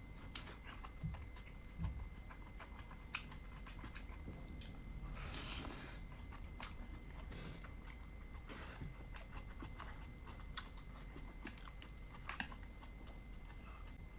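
Close-miked chewing of dumplings: wet smacks and small clicks of the mouth and teeth, with a longer rushing sound about five seconds in. A faint steady high whine sits under it.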